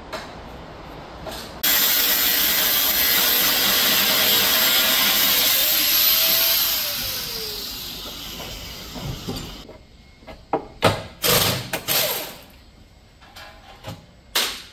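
A power tool starts suddenly and runs for about six seconds, then winds down with a falling whine as it stops. A handful of sharp clicks and knocks of tools and metal parts follow.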